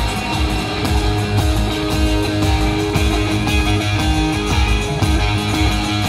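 Live band playing, with electric guitar over a steady low beat.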